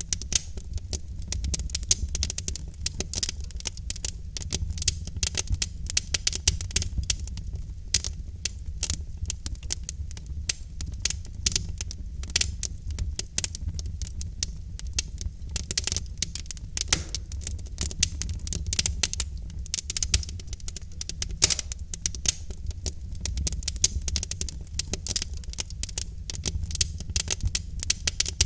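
Logs burning in a fireplace, crackling densely and irregularly with frequent sharper pops, over a low steady rumble.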